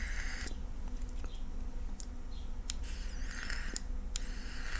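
Draws on an Eleaf iStick 30W vape with a Melo tank: air hisses through the tank's airflow holes, closed down to one hole on each side for a tighter mouth-to-lung draw. One draw ends about half a second in, another comes about three seconds in, and a third begins near the end.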